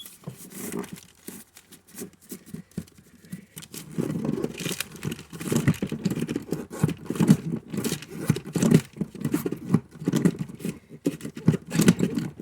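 Hand-tool work setting a rivet in a car door's window channel: irregular metal clicks, scrapes and repeated strokes, busier from about four seconds in.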